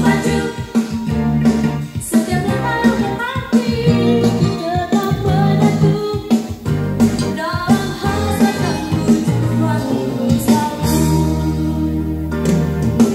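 A song with singing and guitar, played from cassette on a Technics cassette deck through a Pioneer SA-7800 II amplifier and Yamaha NS-M515 bookshelf speakers, heard in the room.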